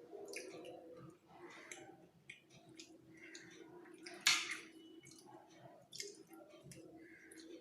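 Close-miked eating of fried rice: wet mouth smacks and chewing, with small irregular clicks and one louder click about four seconds in.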